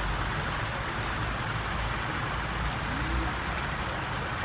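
Steady outdoor background noise: an even hiss over a low rumble, with a faint short hum about three seconds in.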